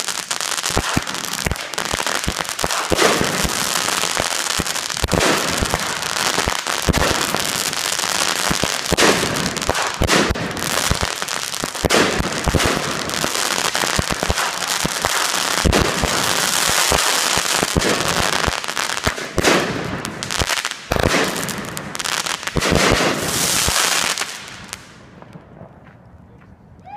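Consumer 200-gram firework cakes firing, a rapid string of launches and pops over a dense crackling hiss, dying away about 25 seconds in.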